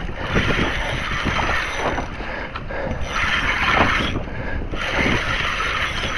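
Spinning reel being cranked to retrieve line against a large hooked fish, the winding coming in three spells of a second or two each.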